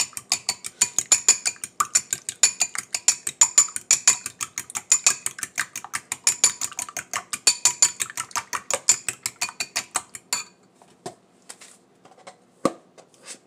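Metal spoon beating raw eggs in a glass bowl: a rapid, even clinking of the spoon against the glass, about six strokes a second. It stops about ten seconds in, and a few single taps follow.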